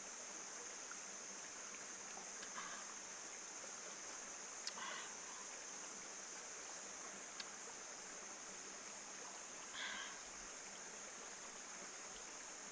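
Quiet forest ambience with a steady high-pitched insect drone over a faint even hiss. There are a few faint, short mouth and eating sounds at about 2.5, 5 and 10 seconds in, plus a couple of light clicks.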